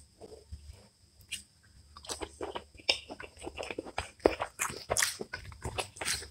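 Fingers squishing and mixing cooked rice with egg masala curry on a plate. It is faint at first, then a dense run of wet clicks and squelches begins about two seconds in.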